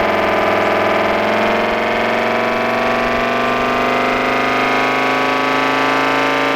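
Reworked electric air raid siren running near full speed, its wail dipping slightly and then creeping back up in pitch. The tone is harsh and many-toned, like a granulator, because its stator ports are unevenly spaced.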